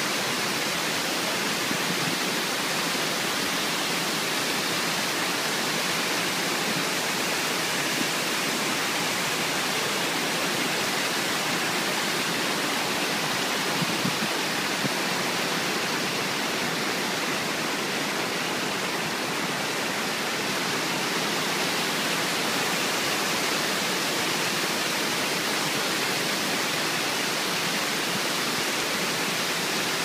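Steady rush of white water from Steall Waterfall pouring over rock steps and boulders, an even roar without any change in level.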